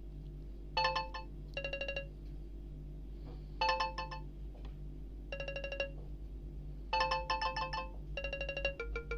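Alcatel OneTouch 2005D ringtone played through the small speaker of a Samsung Ch@t 357 phone: groups of rapid repeated electronic beeps every second or two, with the notes dropping lower near the end.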